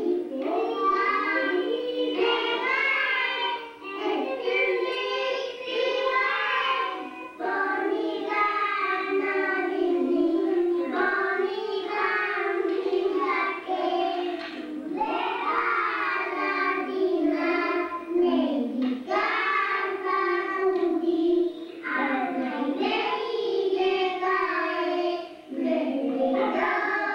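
A child singing a song in phrases of a few seconds each, with short breaths between them.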